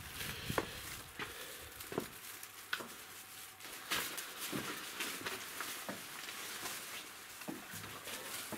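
Irregular footsteps and light knocks on wooden boards, about one every half second to second, as someone walks through a wooden building and up toward the floor above.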